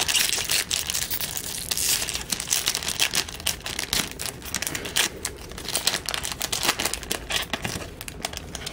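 Foil wrapper of a Topps Platinum football card pack being torn open and crinkled by hand, a dense run of crackles and rustles.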